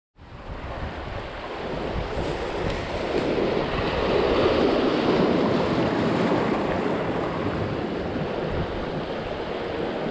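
Sea surf washing and breaking over shoreline rocks, fading in at the start and swelling to its loudest about four seconds in, with wind buffeting the microphone.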